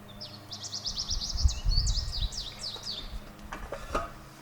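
A songbird singing a rapid run of high, sweeping chirps for about three seconds, over low thumps and bumps of hand work, with a few sharp clicks near the end.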